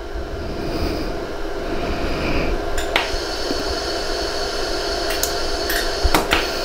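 LaserStar 60-joule iWeld pulsed laser welder firing tack pulses on stainless steel: a few sharp snaps, one about three seconds in and a quick cluster near the end, over the steady hum of the machine.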